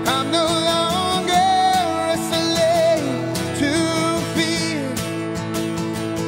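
A man singing a worship song, holding long sung notes, over a strummed acoustic guitar.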